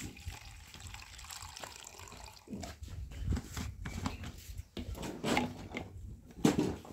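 Lemon juice dripping from a plastic hand squeezer into a cup, then irregular knocks and clicks as a plastic jar lid is twisted off and a spoon is dipped into the sugar.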